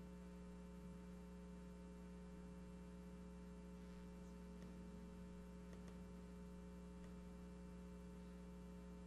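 Near silence: a steady electrical mains hum, with a few faint ticks about halfway through.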